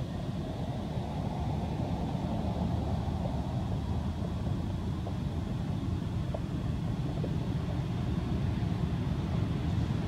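Steady low outdoor rumble with no distinct events, growing slightly louder near the end.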